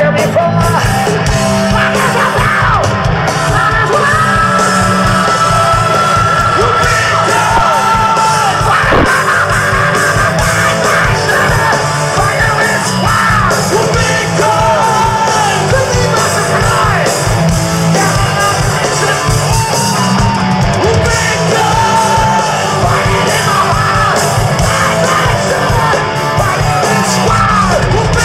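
Live hard rock band playing loud, with a male lead singer's high, held, shouted vocals over the band, heard from the crowd.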